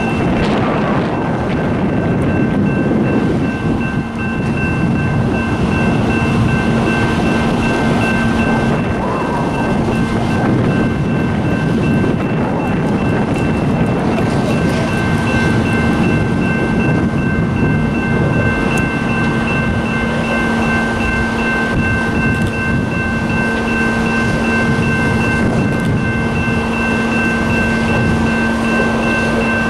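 Steady diesel engine drone with constant whining tones, over a broad rushing noise, from an idling diesel locomotive and a fire apparatus pumping water through an aerial hose stream. The level stays even throughout.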